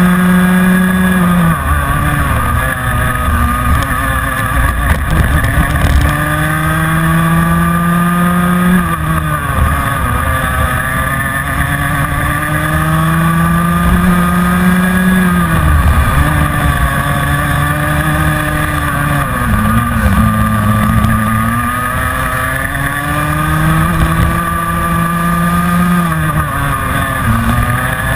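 Rotax 125 Mini Max two-stroke kart engine at race pace, heard onboard. Its pitch climbs slowly along each straight and drops sharply when lifting for a corner, about five times.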